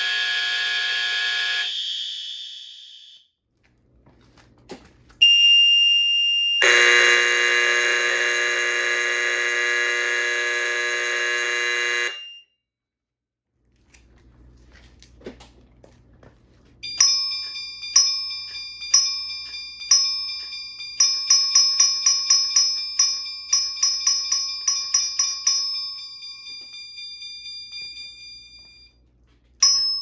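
Fire alarm sounders going off one after another. A buzzing horn cuts off and fades, a short high steady tone follows, then a loud buzz for about five seconds. From about the middle comes a run of ringing strokes, about one a second, then about three a second, dying away near the end.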